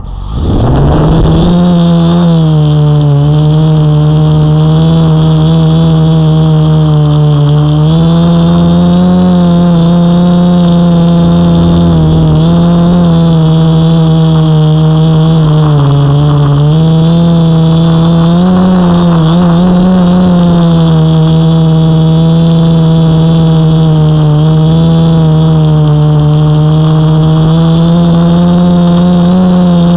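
Quadcopter drone's motors and propellers whirring right beside its onboard camera's microphone. They spin up in the first second into a loud, steady whir whose pitch wavers up and down as the drone climbs and manoeuvres.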